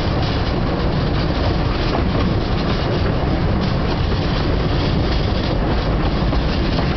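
Steam-hauled train running along the track, heard from an open carriage window: a steady, loud noise of wheels on rail and the moving train.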